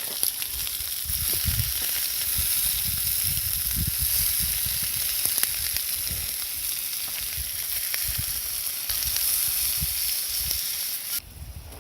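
Food sizzling steadily on an iron griddle over a campfire, with irregular low rumbles underneath; the sizzle cuts off abruptly near the end.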